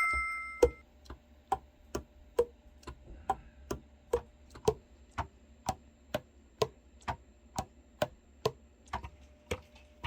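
Steady, evenly spaced ticking, about two ticks a second, like a clock. The fading ring of a bell-like ding carries over the first second.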